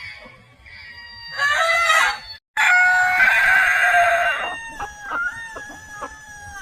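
Rooster crowing: long, drawn-out pitched calls, loudest in the middle, broken once by a sudden cut about two and a half seconds in.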